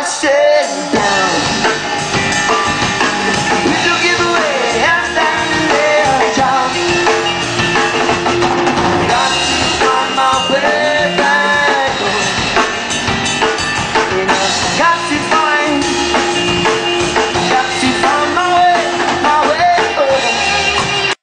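Live rock band playing: a male singer over electric guitars and a drum kit, amplified through stage speakers.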